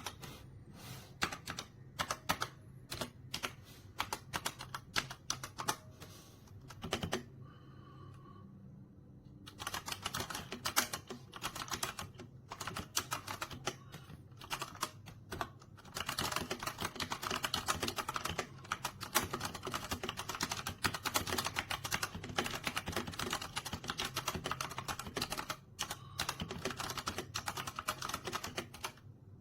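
Keys of a Newmen GM610 60% mechanical keyboard being typed on as a sound demo. Separate key presses come first, then a short lull, then fast continuous typing from about ten seconds in.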